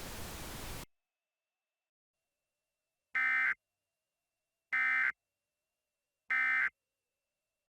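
Emergency Alert System end-of-message data bursts: three short, identical bursts of digital tones about a second and a half apart, signalling the end of the alert. A hiss of static cuts off about a second in, before the bursts.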